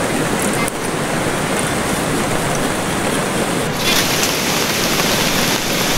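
Hot oil sizzling steadily as a flatbread deep-fries in a wok. A little over halfway through, the sound switches to a brighter, hissier sizzle of strips frying in a pan.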